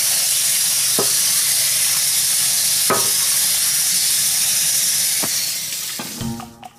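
Steady, loud hissing noise with a few faint clicks. It fades out near the end as a bit of music begins.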